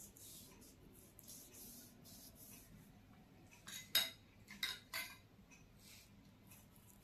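Faint soft swishing of hands rubbing a paste over bare arms and a satin sleeve. About four to five seconds in come three sharp clinks close together, the loudest sounds here.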